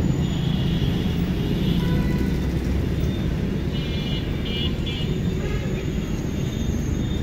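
Steady low rumble of street traffic, with a few faint high tones about four to five seconds in.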